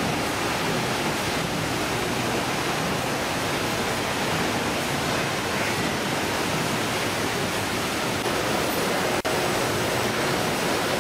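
Steady noise of a fish-processing line running: conveyor belts and stainless-steel machinery with water, no distinct strokes or tones. The noise drops out briefly about nine seconds in.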